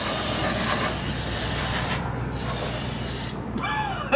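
Aerosol cleaner sprayed from a can onto a removed rear differential cover to clean off gear oil: a steady hiss in two long bursts, with a short break about two seconds in.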